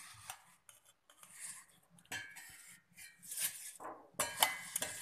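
Steel spoon scraping and clinking against a steel bowl and a stainless-steel mixer jar as soaked finger millet is scooped across, in several uneven scrapes with sharp clinks, the loudest near the end.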